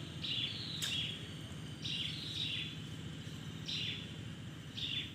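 A bird repeating a short call about once a second, sometimes twice in quick succession, over a steady low background rumble of outdoor noise.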